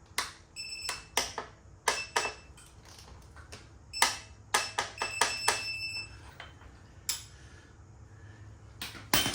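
Metal hand tools clinking and knocking during work on the dirt bike's axle and chain adjusters: a string of irregular sharp clicks, several with a brief metallic ring, and two louder knocks near the end.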